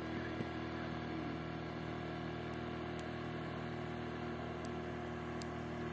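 Small motorboat's outboard engine running steadily across the river, an even, unchanging drone.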